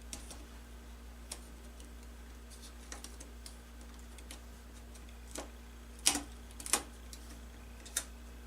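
Scattered light clicks and taps of a tablet's motherboard and small parts being handled and pried free, with a few sharper clicks about six and seven seconds in and another near the end.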